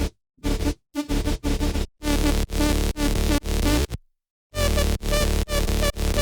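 Electronic dance music playing back from a music program: a pitched-up synth lead in short chopped notes over heavy bass, with portamento making the pitch slide between some notes. The playback stops briefly twice, about a third of a second in and about four seconds in.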